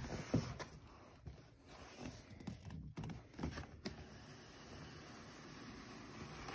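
A cardboard doll box being set down and handled: a sharp knock at the start, a few lighter knocks and scrapes of cardboard, then a quieter steady rustle as the box is worked open, and another knock at the end.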